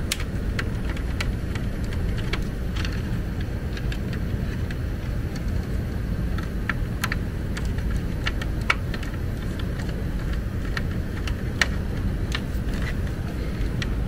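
Small screwdriver and thermostat wire ends clicking and scraping against the terminals of a plastic relay panel, in scattered sharp ticks, over a steady low rumble.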